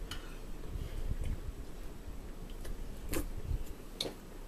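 A spoon clicking and tapping against a soup bowl during eating: a handful of sharp, scattered clicks, the two loudest in the last second and a half.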